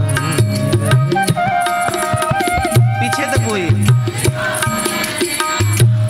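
Devotional instrumental interlude between sung verses of a chaupai: tabla strokes under a melody instrument holding steady notes that step from pitch to pitch.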